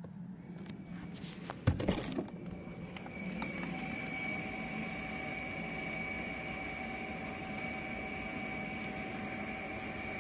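A few clicks and knocks, then about three seconds in the rear electric parking brake caliper motors of a Mercedes-Benz GLA start up and run with a steady electric whine. They are winding the caliper pistons back into service position for pad replacement.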